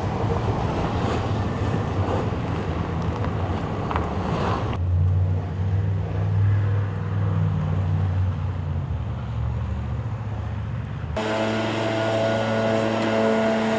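Snow shovelling and street noise: a shovel scraping slush with traffic passing. From about five seconds in comes a low steady traffic rumble, and near the end a small engine running at a steady pitch as a blower throws snow off the pavement.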